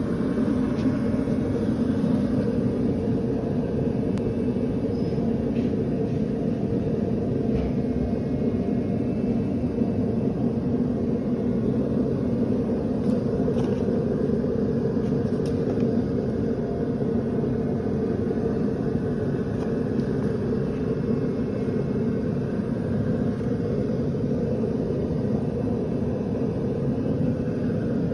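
Steady low rumble with a hum, like running machinery, with a few faint ticks.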